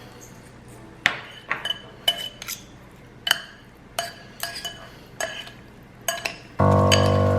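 Kitchen utensils clinking and tapping against dishes: a dozen or so irregular clinks, each with a short ring. Background music comes in suddenly near the end.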